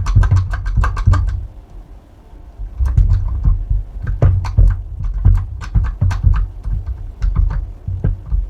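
Irregular clicks, taps and low knocks of a copper ring lug, a heavy cable and a lug crimping tool being handled and fitted together, with a lull of a second or so about two seconds in.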